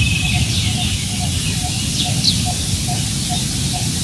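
Wind buffeting the microphone with a steady low rumble, while birds give a few short, falling chirps and a soft low note repeats about four times a second.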